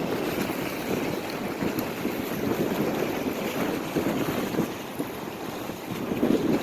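Wind buffeting the microphone over Lake Ontario waves washing onto the shore.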